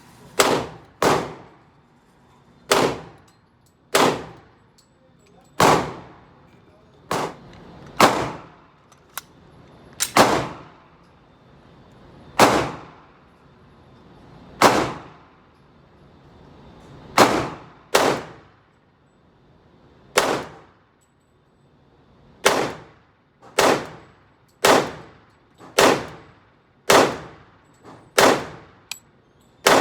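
Gunshots fired one at a time at a slow, uneven pace, about twenty in all, sometimes two in quick succession, each followed by a short echoing ring.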